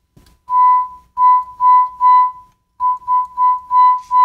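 A pure, whistle-like tone near 1 kHz swelling up and dropping away about nine times, in two quick runs with a short break between them, with a few faint crackles at the start. It sounds like a test tone through the Fender Excelsior tube amp rising and falling as a dirty pot, just sprayed with contact cleaner, is worked back and forth.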